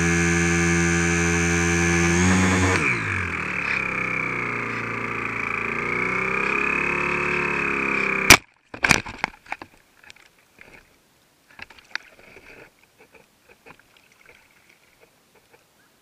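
HobbyZone Super Cub RC plane's electric motor and propeller whining at a steady pitch, then dropping sharply in pitch about three seconds in as the plane loses power, leaving a weaker wavering whine. About eight seconds in the plane crashes with one loud impact and a second knock, followed by scattered small knocks and splashes in shallow water among rocks.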